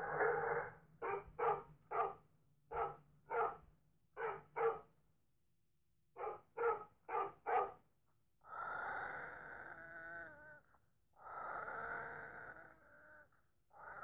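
Dog barking in a run of short barks, then after a short pause four quick barks in a row. In the second half come two long growls, each about two seconds, wavering in pitch.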